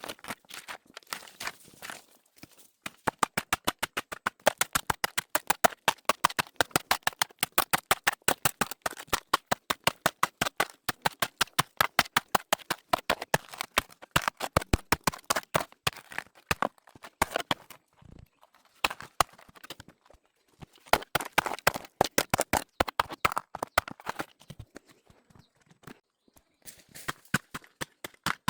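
Rapid, steady strikes of a hand tool, about five a second, pausing briefly around two seconds in, around eighteen seconds in and near the end.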